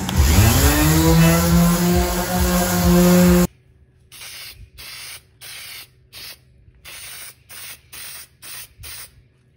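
A random orbital sander with a dust hose starts up, its pitch rising and then running steady. It cuts off suddenly, followed by an aerosol can of Varathane finish sprayed in about nine short hissing bursts.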